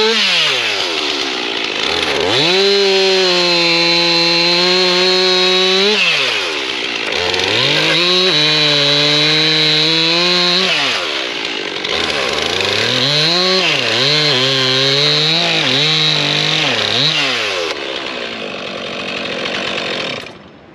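Chainsaw cutting sawmill slabs into firewood lengths. The engine revs up to full throttle for three long cuts and drops back toward idle between them, with quick throttle blips in the third run, then it cuts off near the end.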